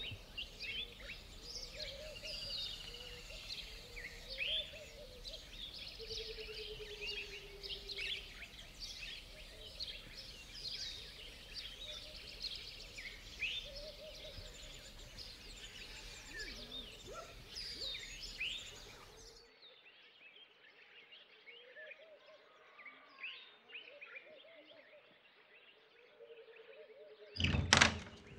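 Many birds chirping and calling, a dense chorus of short chirps and rising notes. About two-thirds through it cuts to a quieter ambience with only scattered chirps. Near the end there is a single loud knock.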